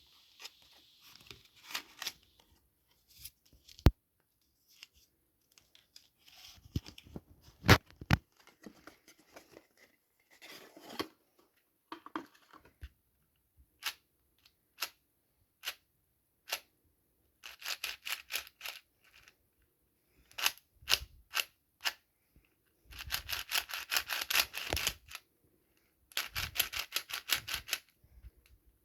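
Unboxing a MoYu MeiLong 4x4 speed cube: packaging is handled and opened with scattered sharp clicks and rustles. In the second half come several bursts of rapid plastic clicking.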